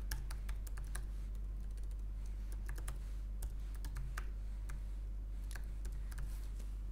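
Typing on a computer keyboard: irregular key clicks, a few a second with short pauses, over a steady low hum.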